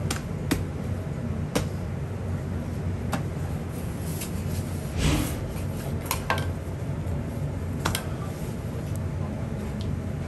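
Steady low hum of a working kitchen, with a few scattered light clicks and knocks of kitchen utensils and dishes, and a brief rustle about five seconds in.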